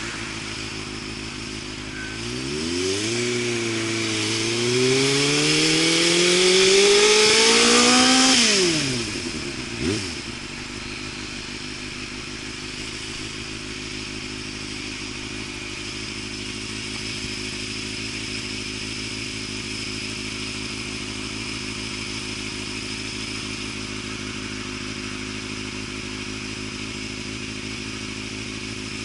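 Suzuki Katana motorcycle's engine through an aftermarket Super Combat exhaust, revving up from idle with a brief dip about four seconds in, climbing for several seconds, then dropping back and settling into a steady idle.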